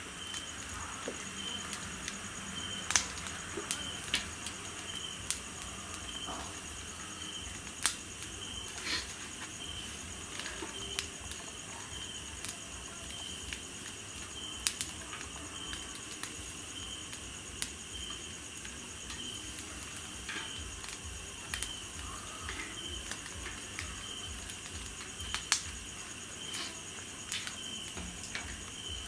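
Insects chirping in a steady repeating pulse, a little over one chirp a second, over a high continuous trill. Scattered sharp clicks and pops stand out, the loudest about 3, 8 and 25 seconds in.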